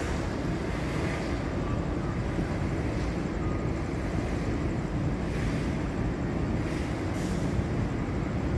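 A train running by on the track, a steady, even rumble with no single loud event.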